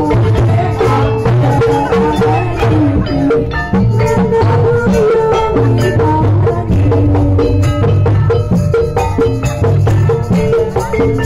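Live Javanese lengger dance music. Tuned percussion and drums play a busy, steady rhythm over a deep bass note that repeats.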